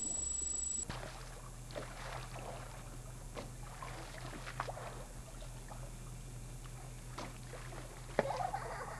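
Shallow river water with scattered small splashes as people wade in a pool, under a steady low hum. A steady high-pitched tone in the first second cuts off abruptly at a tape edit.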